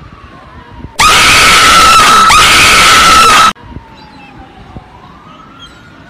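A high-pitched scream held steady for about two and a half seconds, starting about a second in and cutting off abruptly. It is loud enough to overload and distort the recording.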